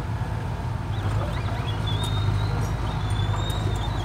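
Small Komatsu crawler dozer's diesel engine running steadily with a low hum as it pushes soil, with birds chirping over it.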